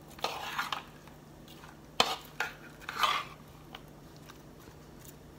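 A metal spoon stirring chopped tomatoes, onions and hot pepper in a ceramic bowl, scraping and clinking against the bowl in a few strokes, with one sharp clink about two seconds in. The stirring stops after about three and a half seconds.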